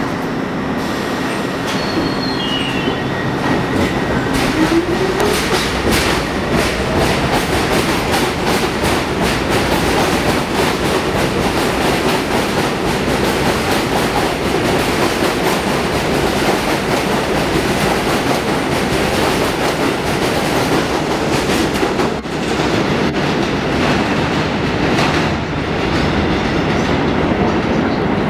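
New York City subway train pulling out of the station. A motor whine rises in pitch as it starts to accelerate, then there is a steady clatter of wheels over the rail joints as the cars run past.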